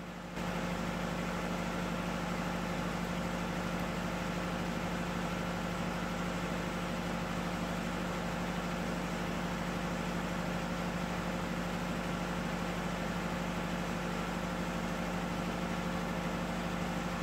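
Electric fuel priming pump on a diesel generator engine running with a steady hum. It comes up in level about half a second in and then holds even, powering the fuel system while the fuel cut solenoid voltage is measured.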